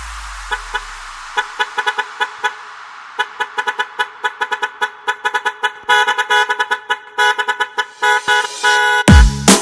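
Truck horn toots cut into short rhythmic stabs, several a second, as a break in an electronic dance track. A fading swoosh opens the break, and heavy bass and drums come back near the end.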